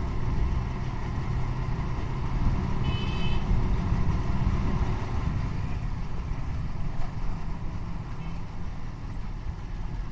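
Motorcycle running at riding speed in traffic, a steady low engine and road rumble. A vehicle horn beeps briefly about three seconds in, and a fainter beep sounds about eight seconds in.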